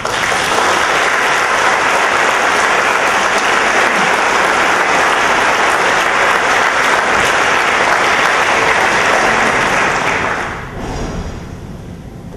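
Audience applauding: a dense, steady clapping that starts all at once and dies away about ten seconds in.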